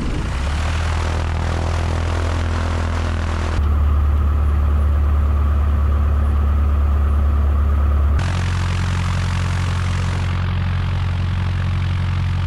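Piper Tomahawk's Lycoming O-235 four-cylinder engine and propeller running at low power on the ground, a steady low drone as the plane taxis. The sound changes abruptly twice, about three and a half and eight seconds in, becoming more muffled in the middle stretch.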